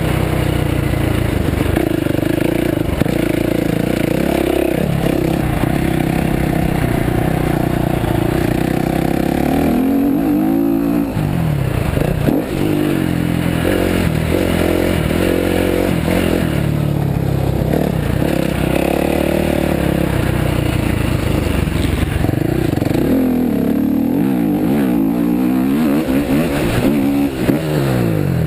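Dirt bike engine ridden hard around a motocross track, its pitch rising and falling again and again as the throttle is opened and shut through corners and straights.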